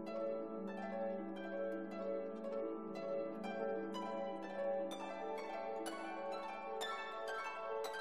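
Background music of plucked string notes, about two a second, over a held low note.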